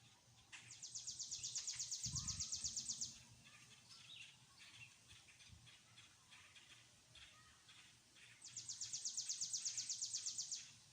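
A songbird singing a fast trill of rapidly repeated high notes, about two and a half seconds long, twice, with softer chirps between. A brief low thump comes about two seconds in.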